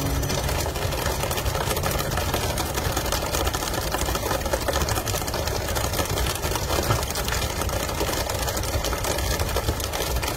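Fishing boat's engine running steadily under a continuous rushing hiss of water from the deck sprayers and the hull's wash.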